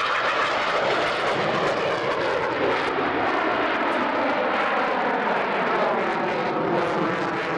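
CF-18 Hornet's twin General Electric F404 jet engines running loud and steady as the fighter pulls up into a vertical climb. A whining tone within the jet noise glides lower as the aircraft climbs away.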